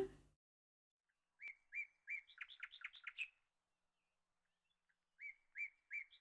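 A small songbird singing twice: each phrase is a few spaced chirps that run into a quick series of notes, lasting about two seconds.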